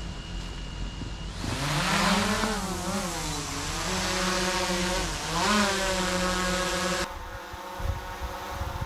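DJI Mavic 2 Zoom quadcopter taking off: a high steady motor whine at first, then the propellers' buzzing hum rises in pitch as it lifts off and wavers up and down as it hovers. Near the end the hum is steadier and quieter.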